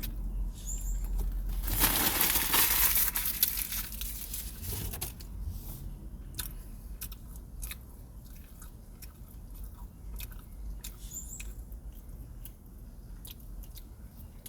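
Close-miked chewing and crunching of fast food, with a loud rustle lasting about two seconds near the start.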